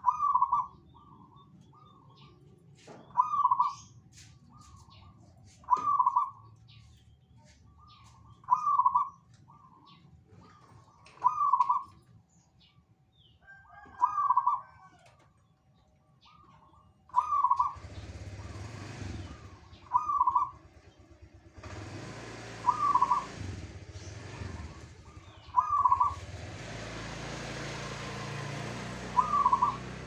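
Zebra dove (perkutut) cooing its song phrase over and over, about once every three seconds, with faint high chirps from other birds between phrases. From a little past halfway a broad hissing noise comes and goes under the song.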